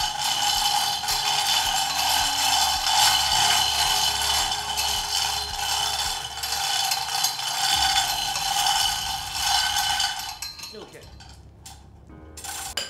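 Loud steady roar of an air-blown furnace with a steady hum in it, and metallic clinking from a hanging chain. The roar drops away about ten seconds in, leaving scattered sharp clicks.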